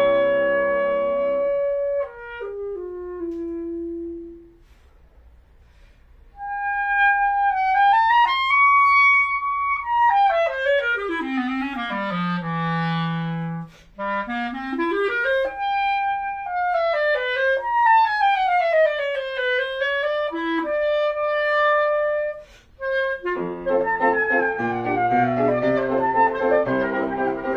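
Clarinet with piano: a chord together, then a brief pause, then the clarinet alone in a cadenza of sweeping runs up and down its range, down to its lowest notes and back, with held high notes and two short breaks. The piano comes back in under the clarinet near the end.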